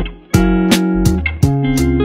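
Background music: plucked pitched notes over a bass line, in a steady beat.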